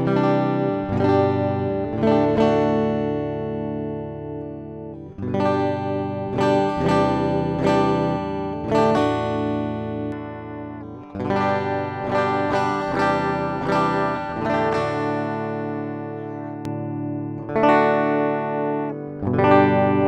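Bad Cat Love Pup electric guitar played clean, plugged straight into a sound desk with no amplifier. Chords and picked notes ring out in phrases that die away, with new phrases starting about five, eleven and nineteen seconds in.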